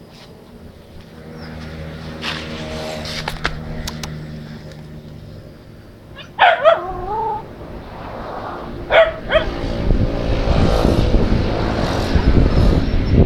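A dog barking: a sharp bark or two with a short wavering whine about six and a half seconds in, then two quick barks a couple of seconds later. A low steady hum lies under the first half, and a loud rush of wind or passing-vehicle noise builds over the last few seconds.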